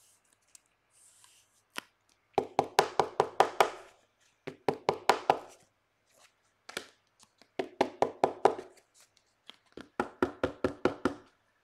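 Trading cards tapped against the tabletop in quick runs of sharp taps, several a second, coming in about five bursts with short pauses between.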